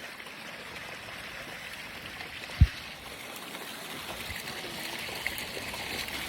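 Stream water running steadily, with a single low thump about two and a half seconds in.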